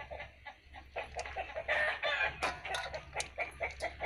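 Chickens clucking in short, choppy calls, with a few sharp clinks of a metal spoon against a steel mixing bowl as a leafy salad is tossed.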